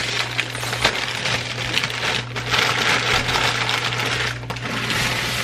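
Plastic bag of dry wide egg noodles crinkling and rattling as the noodles are shaken out of it into a slow cooker.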